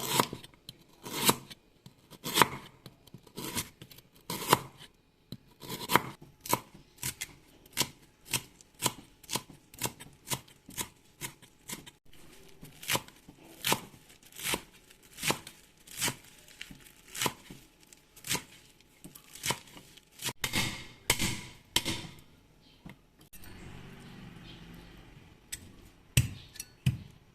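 Knife chopping on a cutting board in repeated sharp strokes, about one a second at first and then about two a second, with a short pause near the end.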